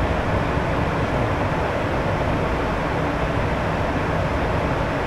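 Steady rush of engine and airflow noise on the flight deck of a Gulfstream G150 business jet in flight, its two turbofans running evenly with a low hum underneath.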